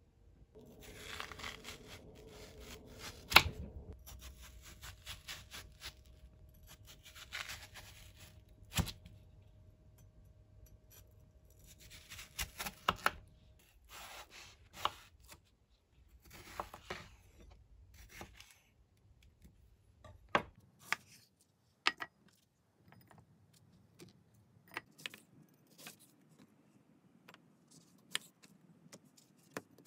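Kitchen knife cutting through watermelon on a bamboo cutting board: crisp, crackly crunching of the flesh and rind, with sharp taps of the blade on the board. In the second half the crunching stops and only separate taps and knocks remain.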